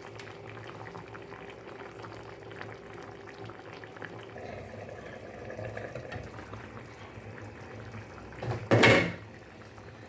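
A pot of chicken in tomato sauce bubbling at a simmer, with fine popping crackles. A brief loud noise near the end, lasting about half a second.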